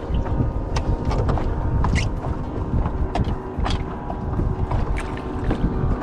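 Wind buffeting the microphone on a small fishing boat, a dense low rumble, under a faint steady hum. Scattered light knocks and taps come through, several of them in the first two seconds and a few more later.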